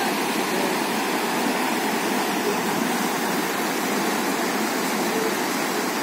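River rapids rushing over rocks: a steady, unbroken rushing of water.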